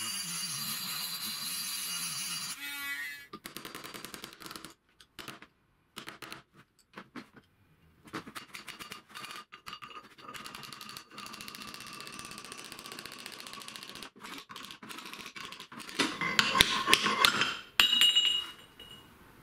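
Small rotary tool with a cutting disc running as it slits a seized steel bushing on a planer feed roller shaft, then winding down about two and a half seconds in. Quiet tool handling and clicks follow, then a run of loud, sharp metal knocks near the end as the slit bushing is split off with a screwdriver.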